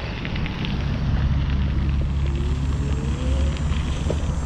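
E-bike tyres rolling over a crushed limestone trail surface: a steady low rumble with a fine gravelly crackle.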